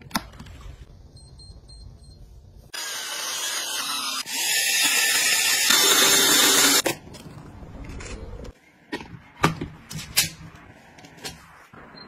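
A handheld electric mini chopper runs loudly for about four seconds, a whirring, grinding rush that gets louder partway through. Before it come a click and a few quick beeps as a rice cooker is worked, and after it scattered clicks and taps.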